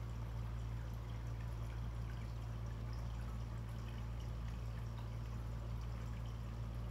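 Water from the Cascade 1000 canister filter's outflow pouring steadily back into the pond, over a steady low hum.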